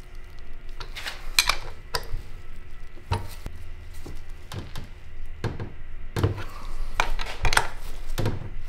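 Irregular metallic clinks and taps, about one a second, as a 15 mm combination wrench is fitted onto and turned on the fittings of stainless braided power steering lines on a steering rack.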